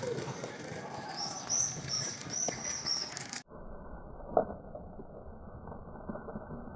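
A small bird chirping: a quick run of about six short, high notes. About halfway through, the sound turns suddenly muffled, with a single sharp tap a second later.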